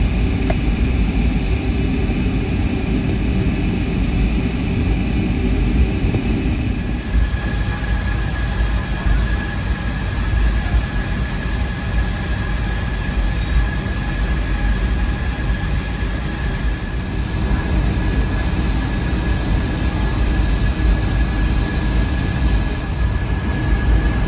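Cabin noise inside a Boeing 757-200 with Rolls-Royce RB211 engines: a steady, loud low rumble of the engines and airframe. About seven seconds in, the sound changes and a steady high-pitched whine sets in and holds.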